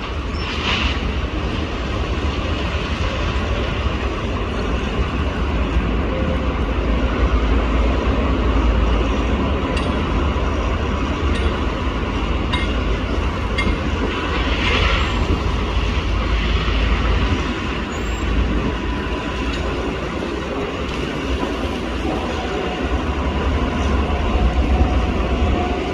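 A rail vehicle running on track with a steady low rumble and a faint steady whine, with two brief hissing swells, one just under a second in and one about halfway through.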